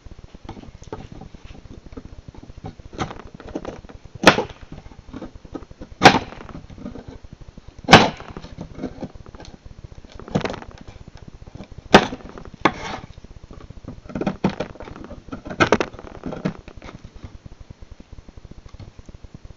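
Randall 28 knife blade striking into a wooden plank: about seven sharp knocks, one every two seconds or so, with lighter cutting and scraping sounds between them.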